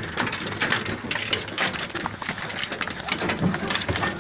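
Dry fallen leaves crackling and rustling under beagles' paws as they scramble out of the dog box and run about, with many small irregular clicks.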